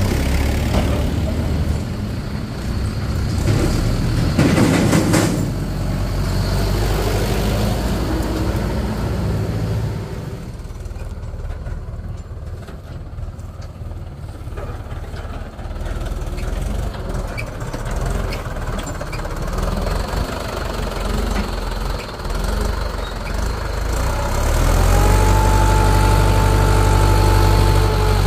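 Mahindra Yuvo Tech+ 575 DI tractor's diesel engine running as it pulls a trailer loaded with mud. It is quieter for a few seconds in the middle, then louder near the end, with a steady whine over it.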